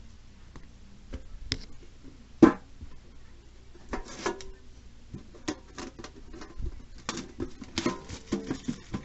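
Trading cards and a metal collector's tin handled on a playmat: scattered taps, clicks and rustles, with one sharp knock about two and a half seconds in and a busier run of clicking and rustling over the last two seconds.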